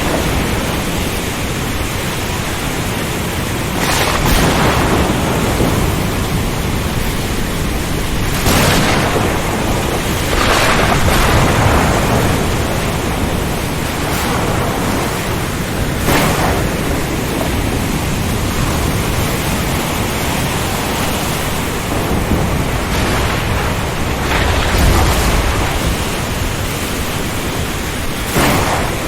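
Storm at sea: a steady wash of wind, rain and surf, swelling into louder surges every few seconds.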